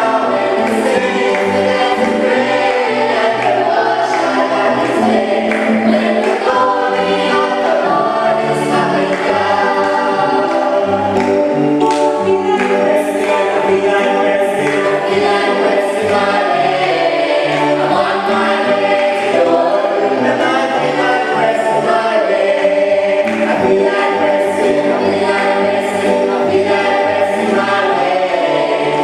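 Choir singing a gospel song, sustained held notes over a moving bass line.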